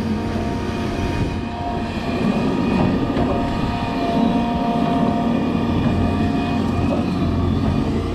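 Excavator's diesel engine running steadily, with a thin steady whine above the engine note.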